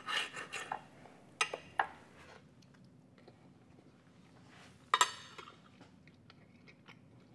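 Knife and fork on a plate: a few light clinks and scrapes in the first two seconds, then one sharper clink about five seconds in, with quiet between.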